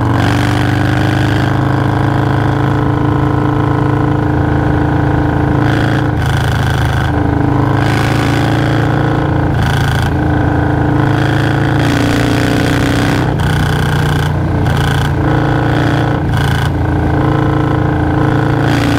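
Harley-Davidson Milwaukee-Eight 117 V-twin with a Stage 2 tune running steadily under way on a Low Rider S. The engine speed rises and falls slightly as the bike cruises along the road.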